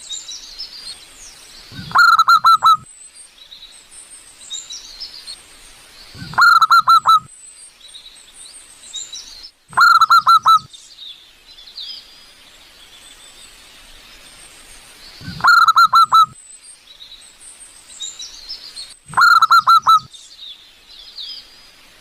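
Wild zebra dove (perkutut) cooing: five loud phrases, each a quick run of about four notes, repeating every four seconds or so. Other small birds chirp faintly in between.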